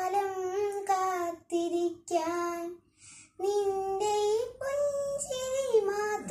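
A young girl chanting a Malayalam poem to a sung melody, unaccompanied, holding long notes that slide between pitches, with a short breath pause about three seconds in.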